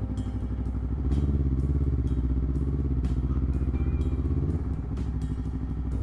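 Honda CBR250RR parallel-twin running through a Villan MV2 aftermarket exhaust at low, steady revs while riding slowly. The note gets louder and fuller about a second in, holds steady, then drops back for a moment near the end.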